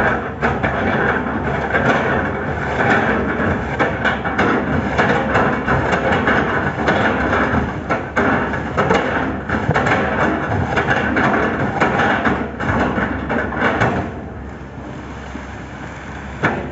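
Excavator's diesel engine running under load while its attachment chops up an oil palm trunk, with repeated knocks and cracking of wood throughout; quieter near the end.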